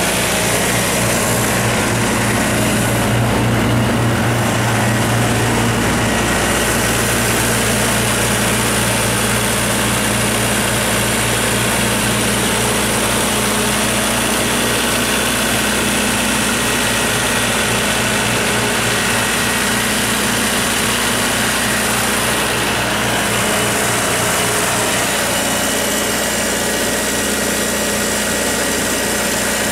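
John Deere 4045 four-cylinder turbo-diesel of a 58 kW generator set running steadily at constant governed speed, with the enclosure doors open. It gives an even, unchanging drone.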